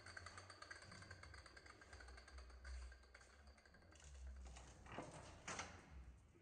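Faint workshop sounds: a low steady hum with a fine rapid ticking for the first couple of seconds, then a few soft knocks about five seconds in.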